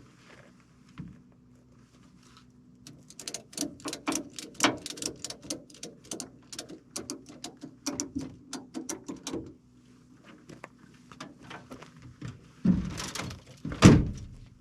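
Empty bottles clinking and rattling in a bag as it is handled, a quick run of clicks for several seconds, then two heavy thuds as bags are dropped near the end. A steady low hum runs underneath.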